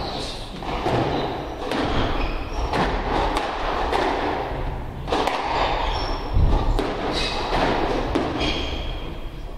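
Squash rally: the ball knocked by racquets and thudding off the court walls roughly once a second, with short high squeaks of shoes on the wooden floor in between.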